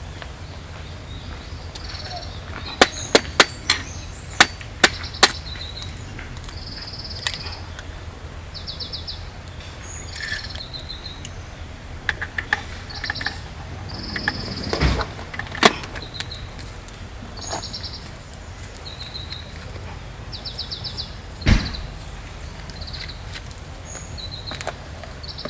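Small birds calling with repeated short, high trills. A quick run of about six sharp knocks comes a few seconds in, with a few single knocks later.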